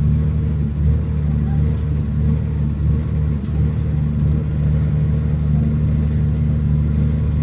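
MT 15000 diesel multiple unit's engine running steadily, a low even hum.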